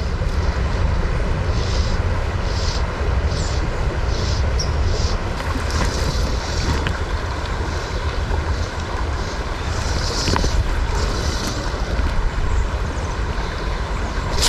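Steady outdoor noise of wind buffeting the microphone, a deep rumble with a rushing hiss over it, mixed with running stream water.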